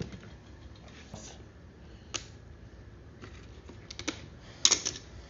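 Scattered light clicks and taps of hand tools and small engine parts being handled, with a quick run of clicks about four seconds in and a louder cluster near the end.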